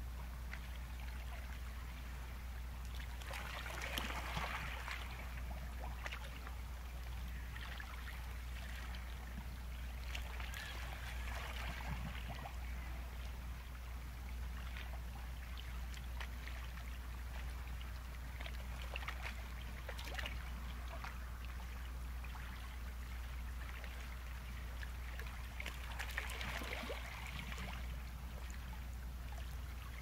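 Sea waves washing along the shore, a steady surge that swells louder about four seconds in, again around ten to twelve seconds, and near the end, over a constant low rumble.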